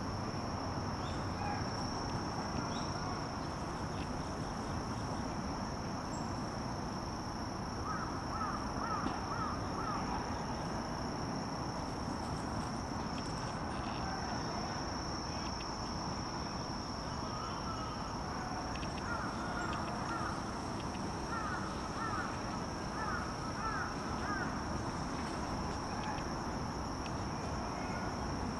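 Steady high-pitched insect drone over outdoor background noise, with two bursts of short chirps.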